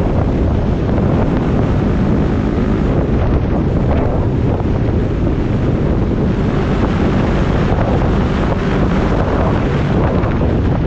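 Steady, heavy wind rush on the camera microphone of a Yamaha WR250X motorcycle at road speed, with the bike's engine running underneath.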